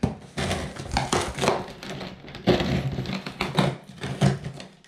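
Knife slicing open a cardboard shipping box along its taped seam: a run of irregular scraping rips, with cardboard crinkling.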